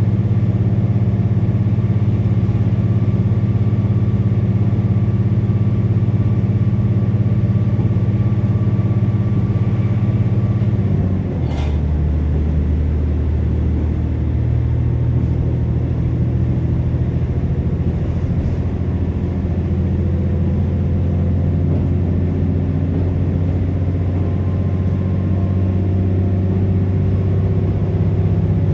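KiHa 47 diesel railcar under way, heard inside the passenger car: a steady diesel engine drone with running rumble. About eleven seconds in, the engine note steps down in pitch with a brief click, then carries on steady.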